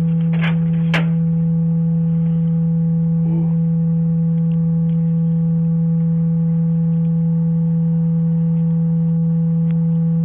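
A loud, steady low-pitched hum held unbroken at one pitch, with fainter higher tones above it.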